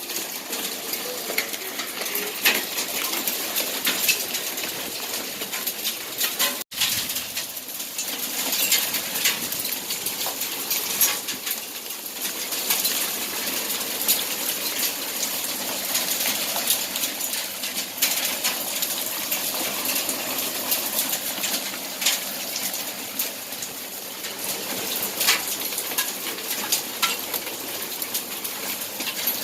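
Hailstones clicking as they strike hard surfaces, many sharp little impacts over a steady rushing hiss of falling hail and rain. There is a brief break about seven seconds in.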